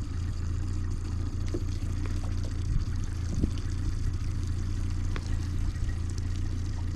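A boat's motor running with a steady low hum, with water trickling and splashing against the boat and a few small clicks over it.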